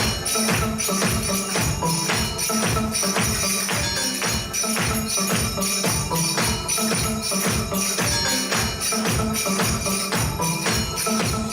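Dance music with a steady, driving beat of about two strokes a second.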